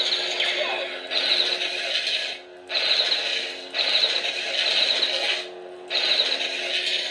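Replica lightsaber playing a sound font: a steady electric hum under a string of five or six harsh, crackling sound effects, each about a second long, starting one after another.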